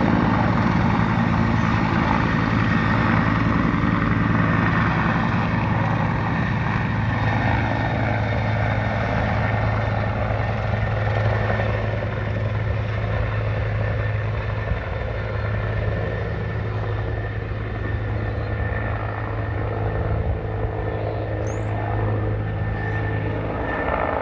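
Helicopter rotor running with a steady low thud, hovering low over the water and then flying off, its sound slowly fading.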